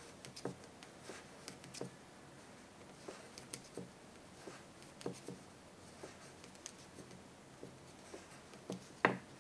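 Faint, irregular light clicks and rustles of wooden knitting needles and yarn as knit stitches are worked one after another, with one sharper click near the end.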